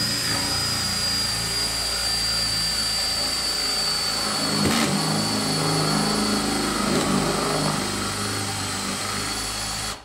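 Makita cordless drill running steadily under load, a Forstner bit boring a 35 mm hinge cup hole into a plywood cabinet door, with a steady high whine from the motor.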